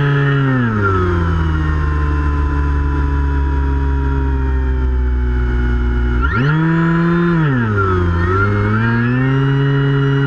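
Electric motor and propeller of a Finwing Penguin RC plane running, heard on board. The pitch drops about half a second in as the throttle eases, holds low, then climbs sharply about six seconds in and dips twice more.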